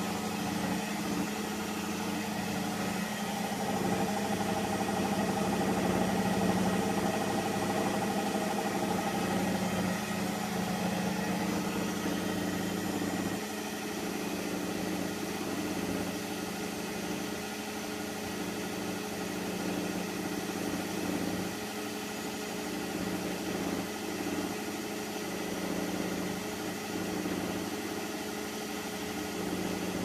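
Hotpoint WMXTF 842 front-loading washing machine running mid-cycle, a steady motor hum with mechanical noise, easing slightly in level about thirteen seconds in.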